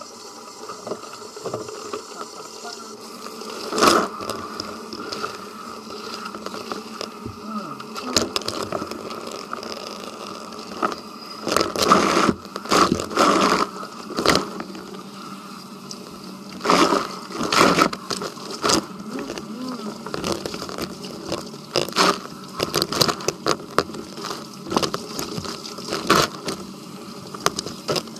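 Hands scrubbing shampoo lather through wet hair close to the microphone: irregular rubbing and scraping strokes, busiest through the middle and latter part, over a steady hum.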